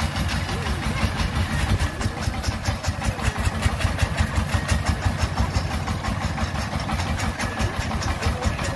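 Single-cylinder diesel engine of a công nông farm cart running with an even, rapid chugging, about eight beats a second.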